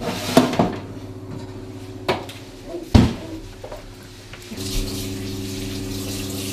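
Metal oven rack and baking tray clattering and knocking as the oven is opened and a tray of pastries is handled, with a heavy knock about three seconds in. A steady hum starts a little after the middle.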